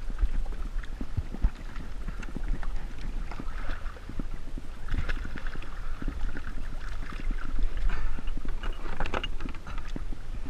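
Choppy sea water sloshing and splashing against a fishing kayak's hull, with wind rumbling on the camera microphone and irregular knocks and bumps.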